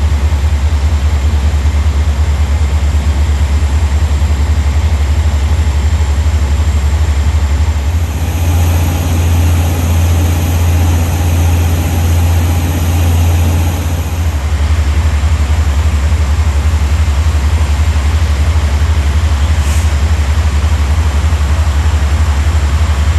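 Heavy fire pumper engines running steadily, a loud low engine sound with an even pulse. From about 8 to 14 seconds in, a higher hiss joins it.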